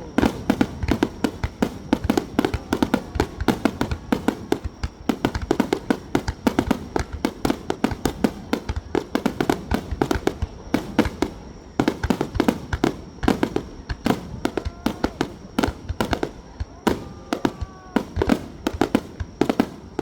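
Fireworks going off in a dense, rapid barrage: several sharp bangs every second, overlapping with deeper booms.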